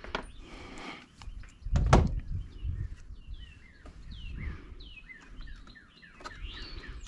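Small birds chirping over and over in short falling notes, with a single loud knock about two seconds in and a few lighter clicks.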